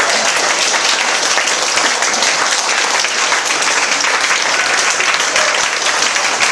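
Audience applauding with dense, steady clapping at the close of a song.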